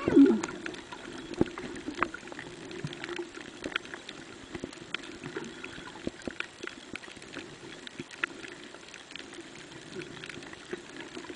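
Underwater ambience over a coral reef, picked up by a camera under water: a steady muffled hum with many scattered sharp clicks and crackles. A louder gurgling burst comes right at the start.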